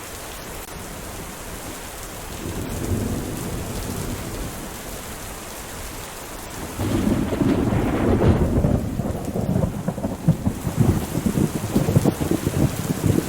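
Steady rain falling, with thunder: a low rumble swells briefly about two seconds in, then a louder, rolling thunderclap starts suddenly about halfway through and keeps rumbling to the end.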